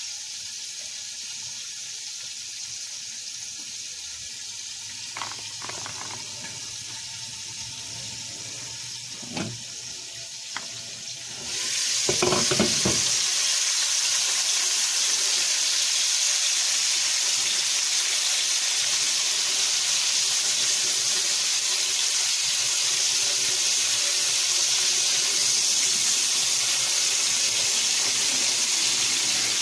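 Chicken liver frying in a pan of hot olive oil: a steady sizzle with a few light clicks of utensils against the pan, then, about twelve seconds in, a knock and the sizzle jumps suddenly much louder and stays loud, as fresh pieces go into the oil.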